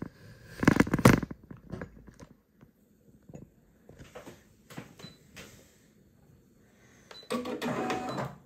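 Clicks and knocks of hands threading a Brother six-needle embroidery machine: handling the thread guides and tension parts, loudest in a cluster about a second in, with lighter scattered clicks after. Near the end there is a one-second mechanical whirr from the machine.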